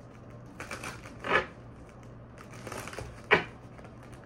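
A tarot deck being shuffled by hand: short papery card noises, with two louder ones about a second in and about three seconds in, the later one the sharpest. A faint low steady hum lies under it.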